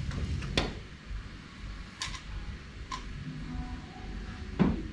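A few light, separate clicks and knocks of a plastic car side skirt and its clips being handled and fitted, with one louder knock near the end.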